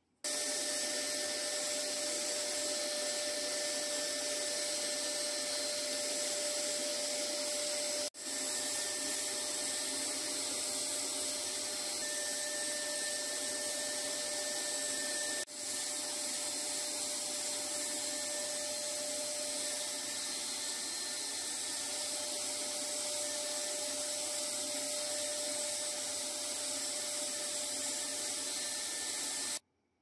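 Paint being sprayed: a steady hiss with a faint whine in it, cut off for an instant twice, about eight and fifteen seconds in, and stopping abruptly near the end.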